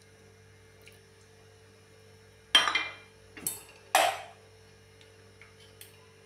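Kitchen containers clinking as they are set down and picked up on a metal shelf rack: two loud clinks about a second and a half apart, with a lighter one between. A faint steady hum runs underneath.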